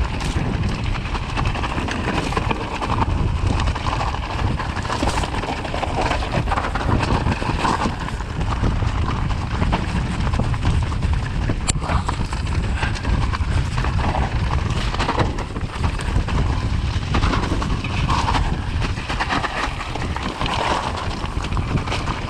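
Bicycle rattling and clattering over a rough trail at speed, with steady wind rush on the microphone.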